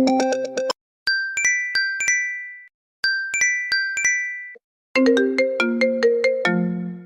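Phone alarm tones playing one after another: a busy electronic melody cuts off, a sparse bell-like phrase follows twice with short silences between, then another quick plucked-note melody begins about five seconds in.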